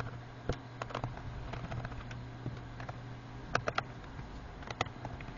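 Scattered light clicks and taps, some in quick clusters, from a hand screwdriver and handling while the screws holding a laptop keyboard are taken out. A low steady hum runs underneath.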